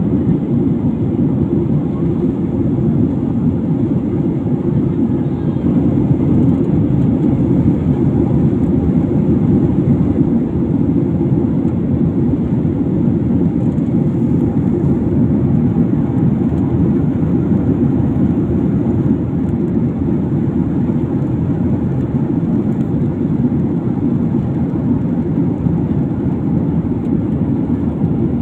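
Airliner cabin noise in flight: a steady, low rush of jet engines and airflow heard from inside the passenger cabin.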